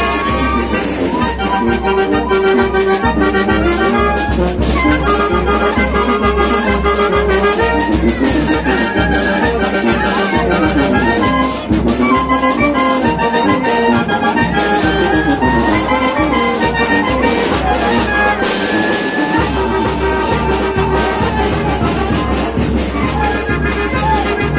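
Live Oaxacan brass band playing a dance tune: clarinets, saxophones, trumpets and trombone carrying the melody over a sousaphone bass and a steady drum beat.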